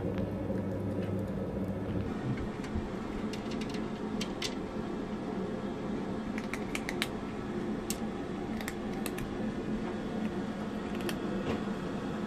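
A cat eating dry kibble from a tray: scattered sharp clicks and crunches, a few at a time, over a steady low hum.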